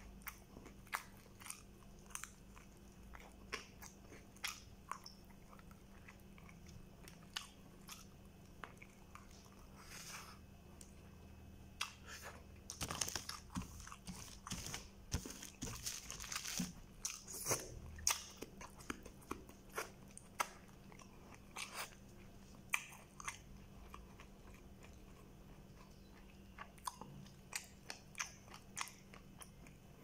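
Close-up sounds of a person eating nasi kandar by hand: chewing with frequent wet mouth clicks and smacks. In the middle comes a longer stretch of louder rustling as the fingers dig through the rice in its plastic-lined paper wrapping.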